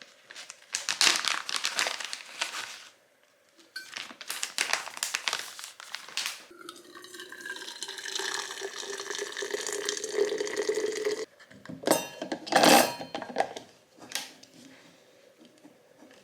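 Kitchen sounds: dishes and utensils clattering, then water flowing steadily into a vessel for about five seconds with a slowly rising tone, then a louder clatter of dishes.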